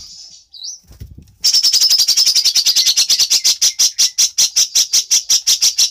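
Songbird song: a buzzy high trill breaks off, a short rising note follows, then a long run of loud, rapid, evenly repeated high notes, about eight a second and slowing slightly, that stops abruptly.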